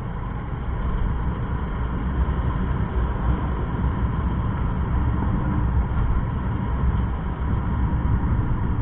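Motorcycle riding along a country road: steady engine and road noise, heaviest in the low rumble.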